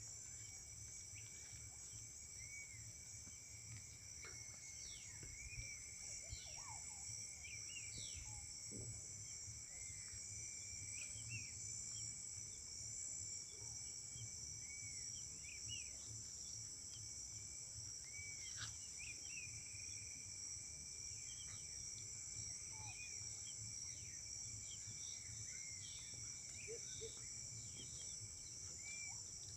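Evening insect chorus, a steady high-pitched buzz with a thin steady tone below it, with many short bird chirps and whistles scattered over it.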